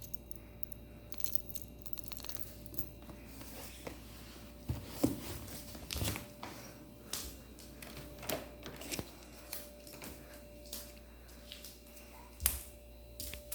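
Scattered clicks, taps and rustling, with a few louder knocks about five, six and twelve and a half seconds in.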